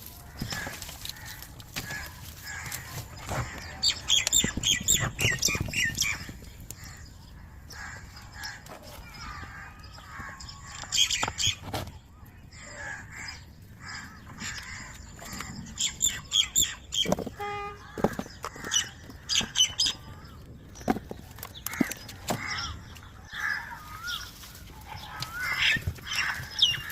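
Birds chirping and squawking in scattered bursts of short high calls.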